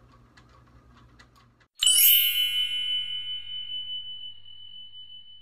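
A single bright bell ding about two seconds in, a high tone that rings on and slowly fades. Before it, faint steady ticking, about three ticks a second.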